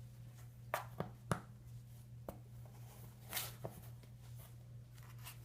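Kittens playing: a few light, sharp taps and knocks and a short scuffle as they pounce and tumble, over a steady low hum.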